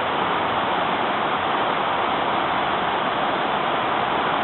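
Steady rush of a swollen river's water.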